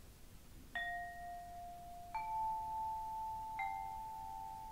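Three struck chime tones about a second and a half apart, each ringing on and overlapping the next: first a low note, then a higher one, then one in between.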